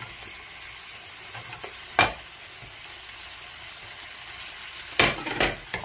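Duck meat and vegetables sizzling steadily in a frying pan as sliced onion and green onion are tipped in. There is a sharp knock about two seconds in and a quick cluster of knocks near the end.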